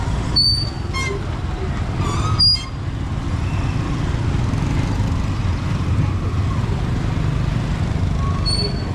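Busy street traffic of motorbikes and tuk-tuks passing close by, a steady low engine rumble with a few short high chirps and one brief louder burst about two and a half seconds in.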